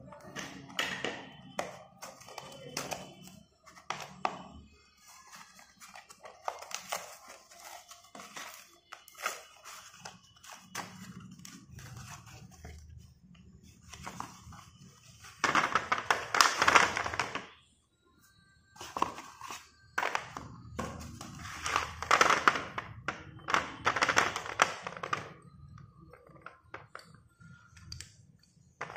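Hands unwrapping and tearing open a paper-wrapped cardboard box of school chalk, with rustling, taps and knocks. Chalk sticks then clatter out into a plastic bowl and are handled. The loudest rustling and clattering comes in several bursts in the second half.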